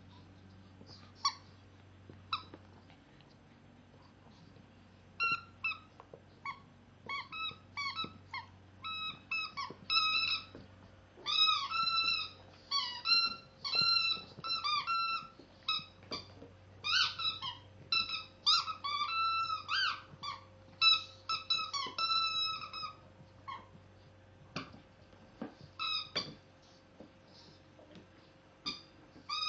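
Squeaky dog toy squeaked again and again as a shih tzu puppy chews it: short, high squeaks, a few at first, then quick runs through the middle, thinning out near the end.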